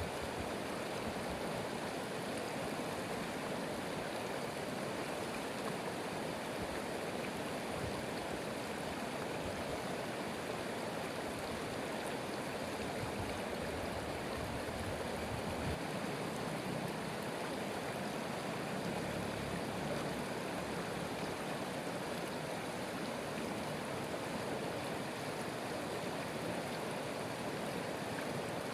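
Steady rushing of a flowing stream, an even wash of water noise.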